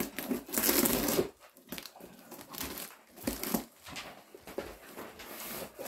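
A knife slitting packing tape on a cardboard shipping box, with crinkling and tearing of tape and cardboard. It is loudest in the first second or so, then comes in a few softer rustles.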